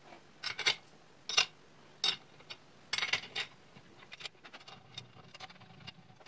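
Sharp metallic clicks and clinks of an Allen key and aluminium extrusion parts being handled while screws are loosened and a crossbar is shifted on the frame. The clicks come in small clusters, loudest in the first few seconds, then fainter scattered ticks.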